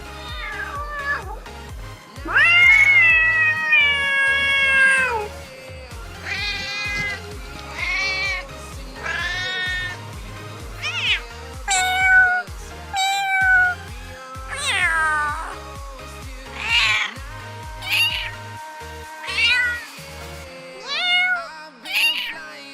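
Domestic cats meowing again and again: one long, drawn-out meow about two seconds in, then about ten shorter meows roughly a second or two apart. Background music with a steady low beat plays under them and drops out near the end.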